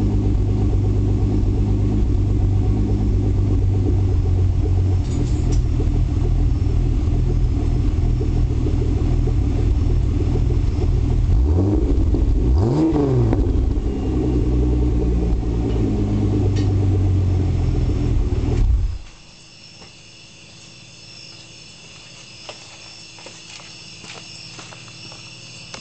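Turbocharged Buick 3800 V6 idling through its exhaust with a low burble, blipped once about twelve seconds in with a quick rise and fall in revs. About nineteen seconds in the engine cuts off suddenly, leaving a faint steady high whine and a few small clicks.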